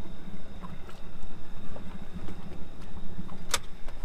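Low steady rumble of wind on the microphone aboard an inflatable boat as it is moored against a quay, with one sharp knock about three and a half seconds in.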